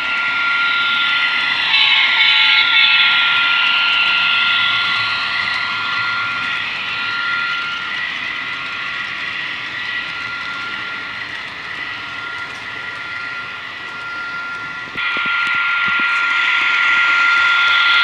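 HO-scale model freight train running, its Walthers SD70ACe locomotive's DCC sound decoder playing diesel engine sound through a small speaker over the rolling of wheels on track, with a steady high whine. The sound gets suddenly louder about fifteen seconds in.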